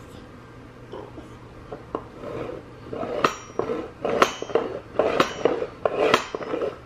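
Wooden balls clacking against a child's wooden ball-and-xylophone toy: small knocks at first, then about five sharp clacks in the second half, some with a brief bright ring from the xylophone keys.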